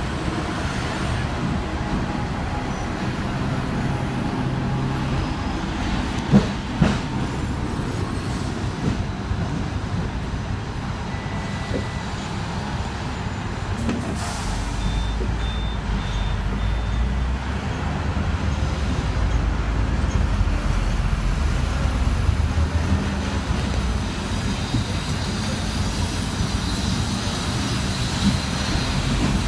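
Ride on the upper deck of a Hong Kong double-decker electric tram: the tram's steady running rumble on its rails, with bus and car traffic around it. The low rumble grows heavier about halfway through, and there is a sharp knock about six seconds in.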